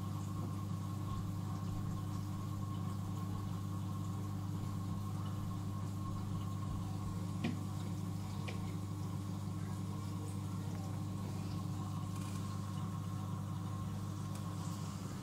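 Steady low electrical hum of running aquarium pump equipment, with two faint clicks about a second apart near the middle.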